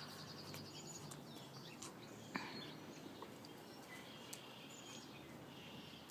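Quiet background noise with faint, high, short chirps and a single brief click about two and a half seconds in.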